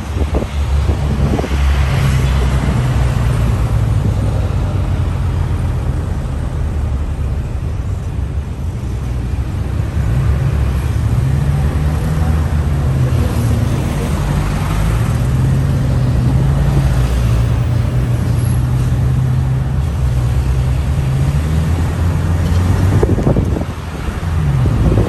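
Engine of the moving vehicle the recording is made from, running steadily with road noise. Its pitch rises and falls a few times partway through as it speeds up and eases off.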